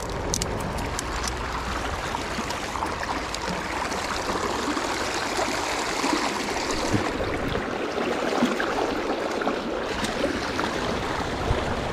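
River water running steadily, a continuous rush of flowing water, with a few faint ticks about half a second in.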